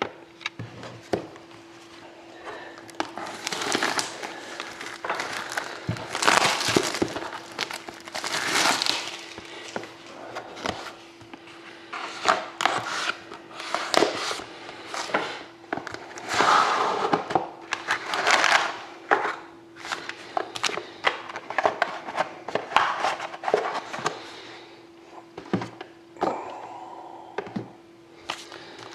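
Plastic shrink-wrap crinkling and tearing as a sealed trading-card box is unwrapped and opened by hand, in irregular rustling bursts with sharp clicks and crackles. A faint steady hum sits underneath.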